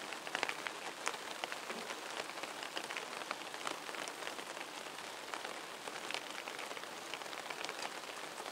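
Rain falling steadily, an even hiss dotted with many sharp ticks of drops landing.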